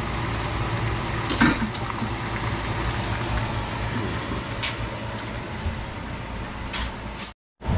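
Squid adobo simmering in a skillet: a steady bubbling hiss over a low hum, with a few light clicks. The sound drops out abruptly for a moment near the end.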